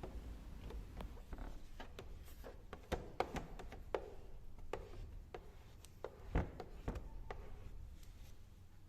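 Faint scattered taps and rubbing of hands handling and pressing down adhesive protection film on the motorcycle's painted panels, about a dozen light knocks at uneven intervals.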